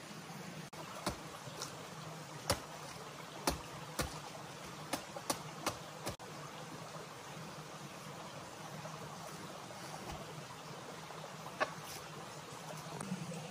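Sharp knocks and snaps as cut wild banana stems are handled and set down: about nine in the first six seconds, then one more near the end. Under them is a steady rushing background.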